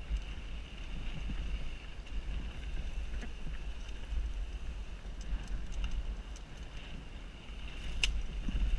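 Wind buffeting a helmet-mounted GoPro Hero 3+ during a mountain-bike ride, a steady low rumble, with scattered clicks and rattles from the bike over rough ground and a sharper click near the end.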